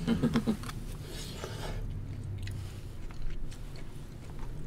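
People chewing food at close range, with a few light clicks of chopsticks and food containers. A brief voice sound comes at the very start.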